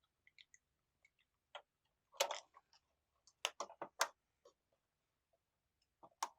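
Scattered small clicks and taps of tools and plastic and metal parts as a laptop's motherboard is worked loose. There is a louder cluster about two seconds in, several more between three and four seconds, and another near the end.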